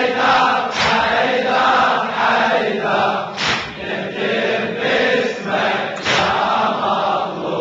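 A large crowd of men chanting together in a Shia latmiya, with loud unison chest-beating (latm) strikes landing about every two and a half seconds.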